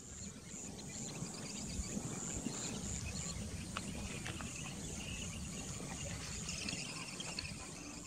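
Wetland ambience of insects trilling in a high, pulsing rhythm over a low rumbling background noise, with a few faint high chirps. The trill is strongest in the first three seconds.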